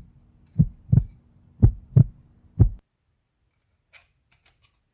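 Background music with a heartbeat-like beat: low double thumps about once a second over a steady low hum, cutting off suddenly about three seconds in. Near the end come a few faint clicks of 3D-printed plastic parts being fitted together.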